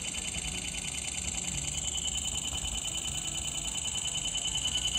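iPhone camera shutter sound firing continuously in burst mode, a fast even stream of electronic clicks at about six or seven shots a second, used as a load test of a replaced battery.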